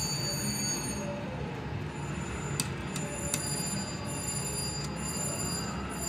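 Casino slot machines giving out steady electronic chimes and tones over a low din of the gaming floor. A few sharp clicks come around the middle as the reel slot is played.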